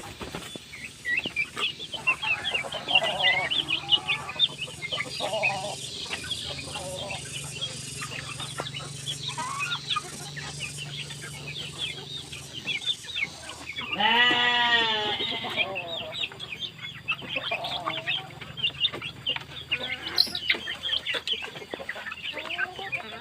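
Village chickens calling and clucking, with many short high calls throughout and one louder drawn-out call about fourteen seconds in.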